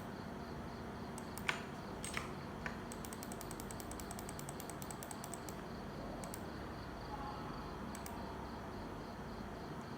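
A few separate clicks, then a quick, even run of light clicks for a couple of seconds, over a steady low hum.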